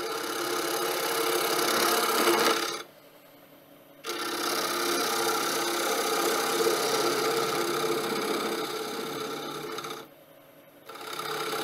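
Carbide-tipped turning tool scraping the inside of a spinning wooden bowl on a wood lathe, throwing off shavings. It runs in three passes, broken by short pauses about three seconds in and again near the end.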